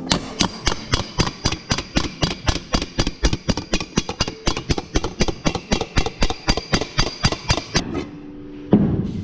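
A small hammer striking a welded seam on a shaped sheet-metal panel in quick, even taps, about five a second, planishing the weld. The taps stop about eight seconds in, and a single knock follows near the end.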